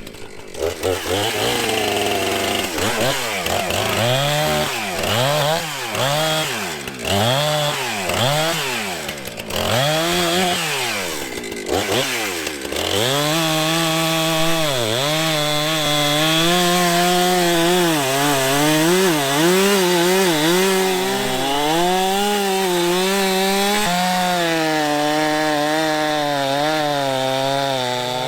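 Two-stroke chainsaw revved repeatedly, its pitch swooping up and down about once a second. From about halfway it is held at high revs, sagging and recovering, as it cuts into a fallen tree trunk.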